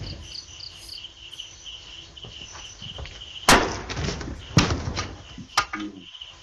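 Crickets chirping steadily at night, with three loud sharp knocks and some rustling over them about three and a half, four and a half and five and a half seconds in; the first knock is the loudest.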